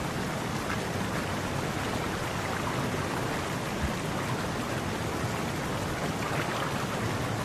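Steady rushing of a waterfall's white water cascading over rocks.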